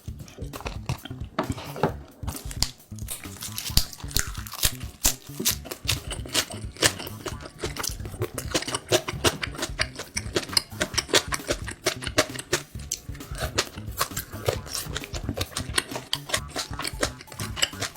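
Close-miked chewing of pork: a dense, irregular run of wet smacks, clicks and crunches from the mouth.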